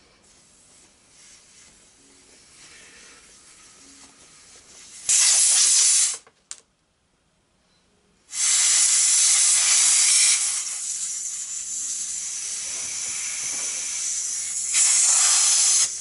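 Compressed air hissing out of an ATV tire's open valve stem, its valve core removed, as the air chuck comes off. It is faint at first, rushes loudly about five seconds in, cuts off for about two seconds, then rushes again and settles to a steady hiss with one more loud spell near the end.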